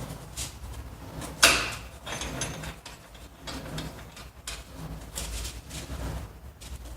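Work sounds of fitting plastic heating-coil pipe to a boiler manifold: irregular scraping and rubbing of pipe and fittings, with one sharp knock about one and a half seconds in.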